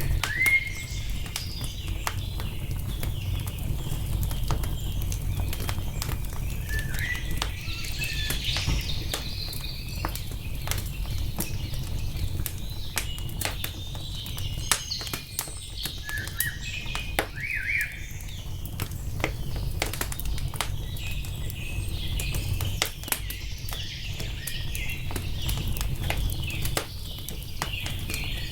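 Wood fire crackling with many sharp pops over a steady low rumble, while songbirds chirp on and off in short calls.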